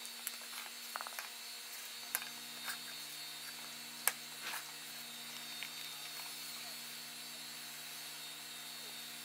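Quiet room tone with a low steady hum that comes in about two seconds in, and a few faint clicks and taps of a plastic compass and paper being handled on a tabletop.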